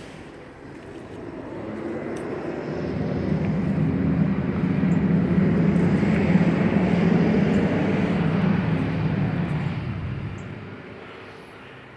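A passing engine, growing louder over several seconds, peaking midway and fading away near the end.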